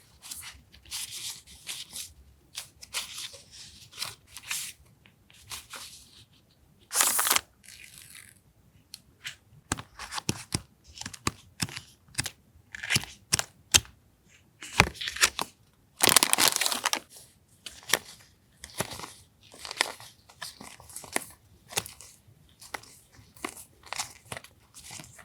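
Paper and stationery packaging being handled: irregular rustling and crinkling, with two longer tearing or ripping sounds, one near the first third and one past the middle.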